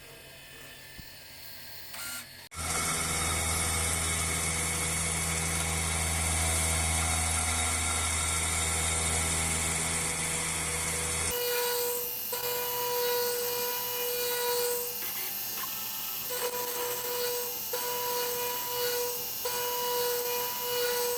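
Milling machine at work on steel. Its motor starts about two and a half seconds in and runs with a loud, steady hum. After about eleven seconds the sound changes to a ringing tone that cuts in and out, as the cutter works the metal.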